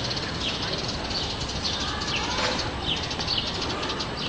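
Small birds chirping: short, high, falling chirps repeat about every half second over a steady rushing background noise.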